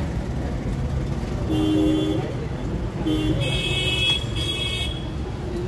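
Road traffic: a steady low rumble of engines, with vehicle horns tooting in short blasts about one and a half seconds in and again several times between three and five seconds in.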